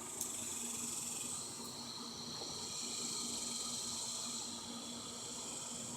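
Insects calling steadily outdoors, a continuous high shrill drone, over a faint steady low hum. There is a single small click just after the start.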